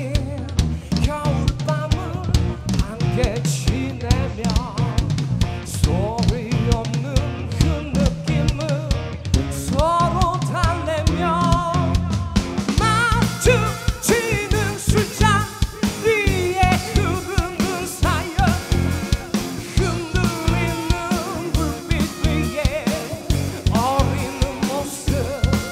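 Live rock band playing, with drum kit and bass driving a steady beat. A singer's voice rises over it in wavering, sliding lines.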